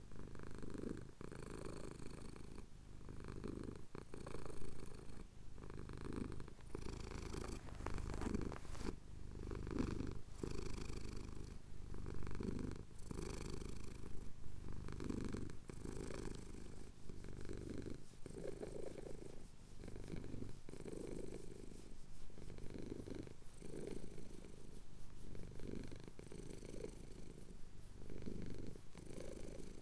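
A domestic cat purring close to the microphone, the purr swelling and easing in a steady rhythm with each breath in and out.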